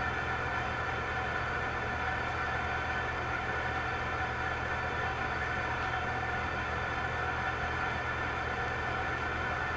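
A steady, unchanging machine hum: a low drone with a couple of fixed higher tones over a noisy hiss, like a fan or blower running.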